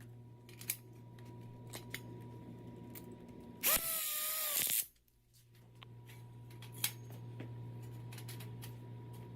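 Power drill running for about a second near the middle, its motor spinning up, holding and winding down as it drives a self-tapping screw into a steel tube frame. Scattered light metallic clicks from parts being handled come before and after it.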